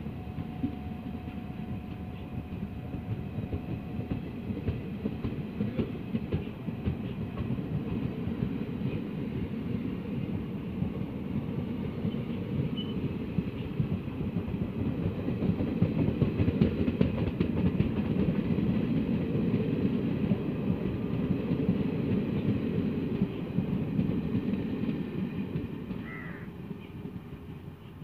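Passenger coaches of a departing express train rolling past on the track: a steady rumble of wheels on rail with a clickety-clack of the wheels. It builds to its loudest around the middle and fades over the last few seconds as the last coach draws away.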